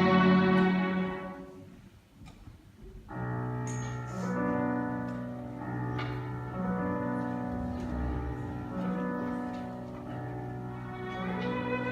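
Live classical instrumental music: a violin's held note fades away about a second in, and after a short pause the accompaniment comes in about three seconds in with slow, sustained chords. A higher melody line enters over the chords near the end.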